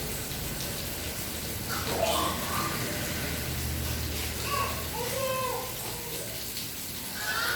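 Steady rain falling, an even hiss of water, with faint voices briefly heard a couple of times.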